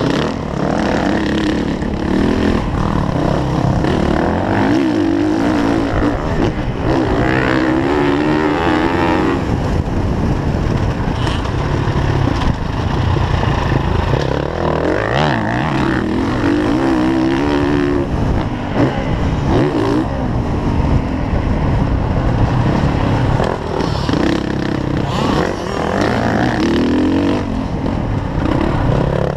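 Motocross dirt bike engine revving up and down as it rides the track, heard close up from a camera mounted on the bike itself, with the rise and fall of the throttle repeating through the corners and straights.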